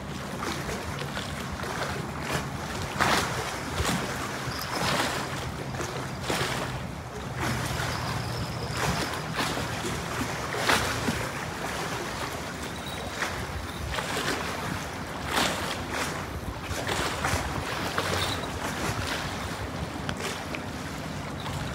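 Water lapping and splashing at the shore, in irregular surges every second or two, with wind on the microphone and a faint low steady hum underneath.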